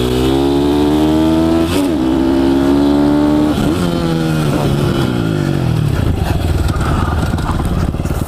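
Pit bike's single-cylinder engine accelerating hard, pitch climbing, dropping at two gear changes about 1.7 and 3.6 seconds in, then falling away as the rider backs off the throttle.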